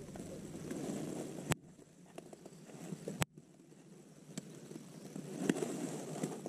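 Quiet handling sounds of a bass being held and shifted on a plastic fish-measuring board, with two sharp clicks about a second and a half and three seconds in.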